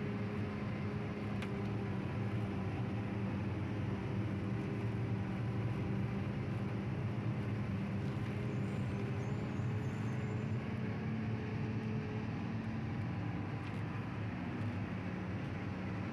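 Truck engine running steadily at a constant pitch, a low drone with road noise.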